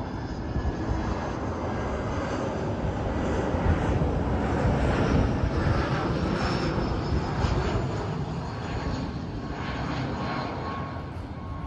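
Jet airliner on final approach to land, its engines making a steady rushing drone that swells to its loudest about four to five seconds in, then slowly fades as the aircraft descends toward the runway.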